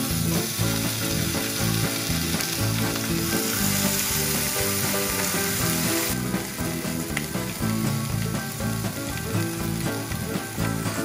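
Steady hiss of tyre and road noise inside a moving car, under music. The hiss drops abruptly about six seconds in.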